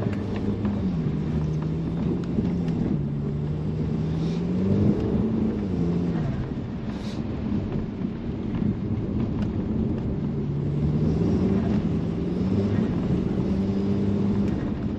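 Audi A4's turbocharged TFSI four-cylinder, heard from inside the cabin, pulling and easing off. Its note climbs and drops back several times, with steady stretches between. It breathes through a high-flow catalytic converter and 3-inch downpipe.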